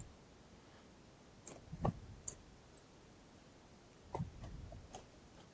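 Screwdriver tightening laptop hinge screws: a few faint clicks and ticks, one small cluster about two seconds in and another about four seconds in.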